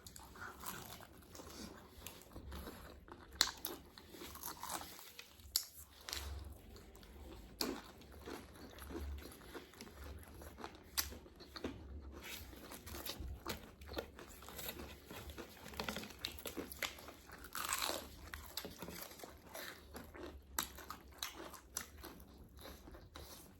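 People eating KFC fried food: repeated crunchy bites and chewing, with scattered sharp crunches.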